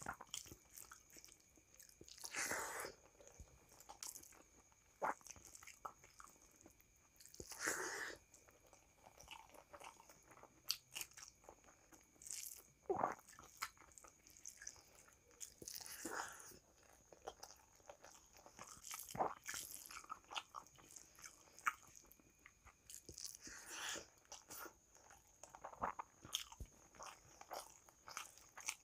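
A person chewing and smacking mouthfuls of rice, dal and vegetable curry eaten by hand. The sounds are irregular short clicks and soft wet squelches, with fingers mixing the rice on the plate.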